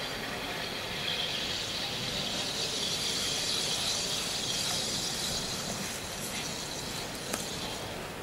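Carbon dioxide hissing into a bottle of cold-brewed tea as it is carbonated in a carbonating device. The hiss swells about a second in and eases off after about six seconds.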